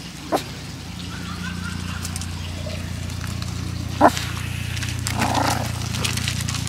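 Small dog giving a steady low warning growl at other dogs, with two short sharp barks, one just after the start and one about four seconds in.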